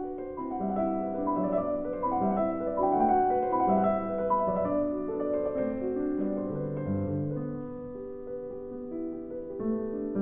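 Slow, calm piano music, held notes moving one after another in a gentle melody.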